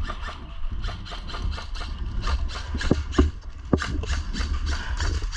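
Irregular sharp clicks and knocks, several a second, with rubbing and scraping over a steady low rumble: a player moving with gear on a body-worn microphone.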